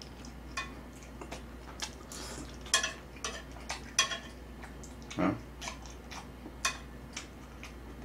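Metal tongs clicking and clinking against metal cookware while picking pieces out of a pan of saucy braised chicken: scattered light taps, about a dozen, at an uneven pace. One brief, louder low sound comes about five seconds in.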